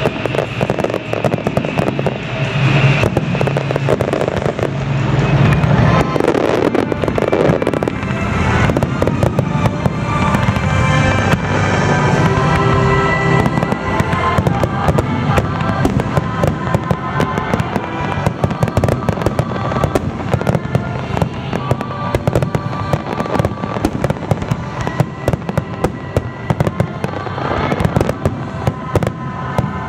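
Aerial fireworks show in full barrage: a continuous run of bursts and crackling stars, with music playing alongside.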